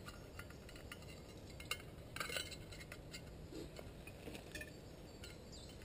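Faint small metal clinks and light rattles as a little brass petrol camping stove, an Optimus 88, and its parts are handled and moved about.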